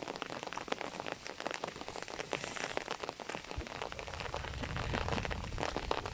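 Steady rain falling, a dense patter of many individual raindrops. A low rumble joins underneath a little past halfway.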